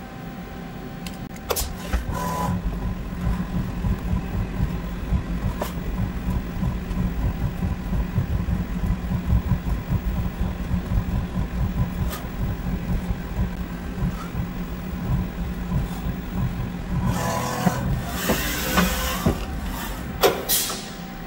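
CNC milling machine running steadily, its axes moving a Sharpie held in the spindle over an aluminum plate: a low machine hum with a few faint steady tones. A louder hissing stretch comes near the end.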